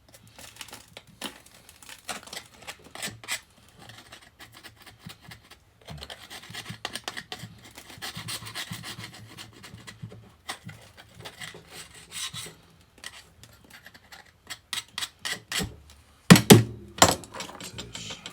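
A hand tool scraping and scrubbing caked dirt and crud off a Kurt milling machine vise, in uneven strokes. A few loud knocks come near the end.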